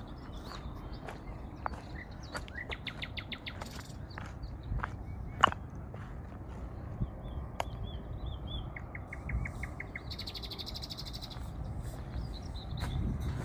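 Several songbirds calling and singing: quick runs of short repeated notes, a rapid trill about nine seconds in, and a high buzzy trill just after it. Under them are light crunching footsteps on a forest trail and one sharp click about five and a half seconds in.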